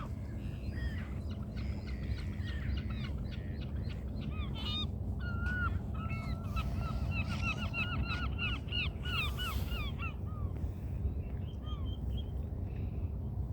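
A flock of geese honking, many short calls overlapping, busiest and loudest in the middle stretch.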